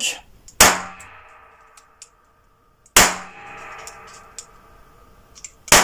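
Three .22 rimfire shots from a Chinese Type 87 knife-pistol, spaced about two and a half seconds apart. Each is a sharp crack with a ringing echo that dies away in the small indoor range.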